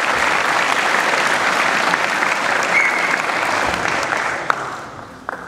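Audience applauding, a dense patter of many hands clapping that dies away over the last second or so.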